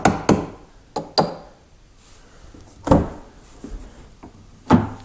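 Small tack hammer knocking on rusted lower fender sheet metal, breaking loose the rotted steel: two quick strikes at the start, two more about a second in, then single hits about three seconds in and near the end.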